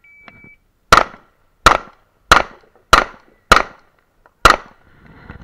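A shot timer beeps once for the start, then a Glock 35 pistol in .40 S&W fires six shots, about two-thirds of a second apart, the last after a slightly longer pause.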